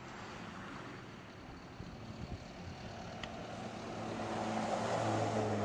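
A motor vehicle driving, its engine and road noise growing steadily louder over the last couple of seconds as it comes closer.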